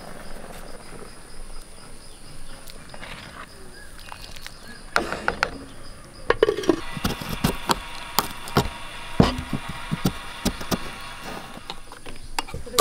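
A clay lid set down on a clay cooking pot about five seconds in, then a knife chopping fresh coconut flesh on a wooden table: a run of irregular sharp knocks.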